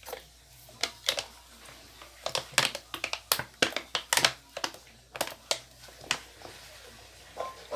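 Thin plastic bottle crinkling and crackling as it is squeezed by hand to pour liquid detergent into a plastic basin. The crackles come irregularly and are thickest in the middle.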